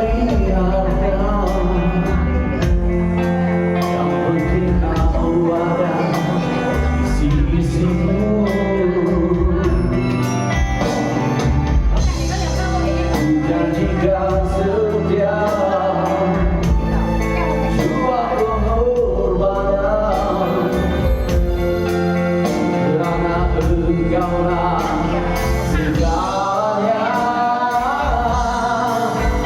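A song: a singing voice over band accompaniment with a steady bass line and drums.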